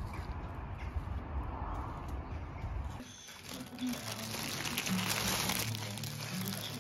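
Low rumbling outdoor noise that cuts off about three seconds in. Background music with a steady low bass line follows, along with crinkling and rustling.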